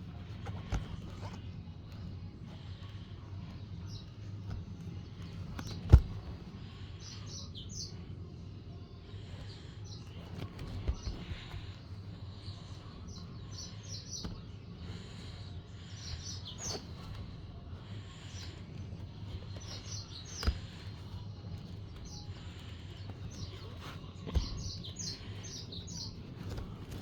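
Small birds chirping repeatedly in short high notes, with a few sharp knocks, the loudest about six seconds in, over a low steady hum.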